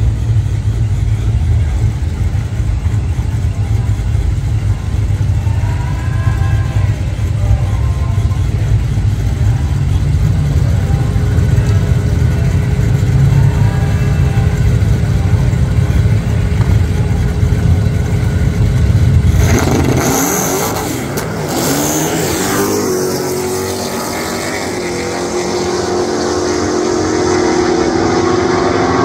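A supercharged 392 Hemi V8 in a RAM 1500 pickup and a Dodge Challenger's V8 idle loudly at a drag strip's starting line, then launch at full throttle about two-thirds of the way in. After the launch the engines' pitch climbs steadily as they pull away down the quarter mile.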